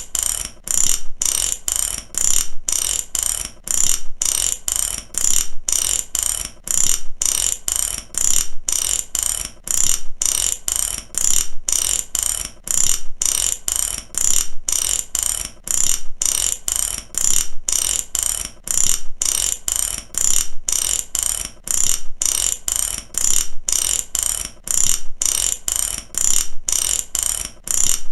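Mechanic's ratchet wrench clicking in quick runs, about two strokes a second with short pauses between, steady and repetitive.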